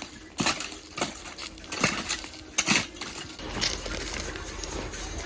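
A hand tool scraping and clinking over gritty, stony ground in repeated strokes, about one stroke a second, as the ground is cleared. The strokes stop about three and a half seconds in, leaving a low steady hum.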